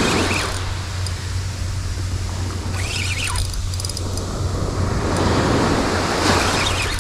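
Small surf breaking and washing up a beach, with wind rumbling on the microphone. A brief squeaky sound comes about three seconds in.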